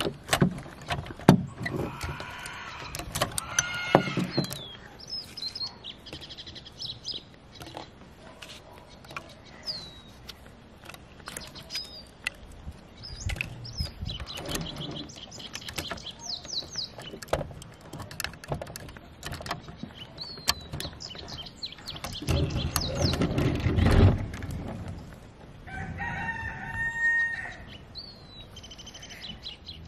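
Clicks and knocks of a diecast front-loader garbage truck model being handled as its forks and arms are worked, with a longer rumble about two thirds through as it rolls across wooden boards. Small birds chirp throughout, and a rooster crows near the end.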